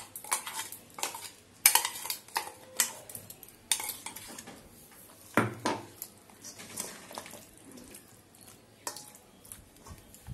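A steel spoon scraping and clinking against a small steel cup and a stainless steel mixing bowl as a thick paste is scraped out onto raw chicken. The clicks and knocks come irregularly, the loudest about two, four and five and a half seconds in.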